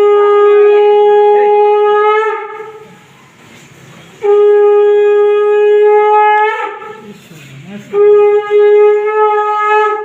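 A conch shell (shankha) blown in three long, steady blasts with short pauses between them, as is traditional at the Bhai Phonta ritual.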